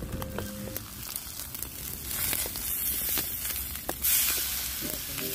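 Steak sizzling on a hot roof slate over a crackling wood fire. The sizzle swells into a loud hiss from about two seconds in and peaks near four seconds as the steak is lifted and turned on the slate, then settles.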